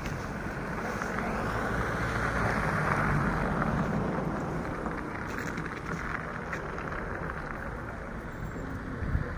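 A car driving past, its engine and tyre noise swelling to a peak about three seconds in and then fading.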